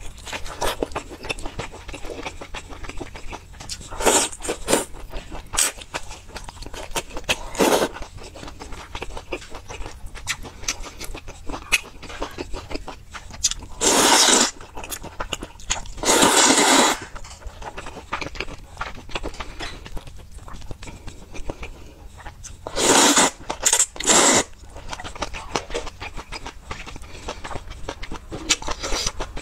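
Close-miked eating: wet chewing and biting with many small smacking clicks, broken by a few long, loud slurps of noodles near the middle and again later.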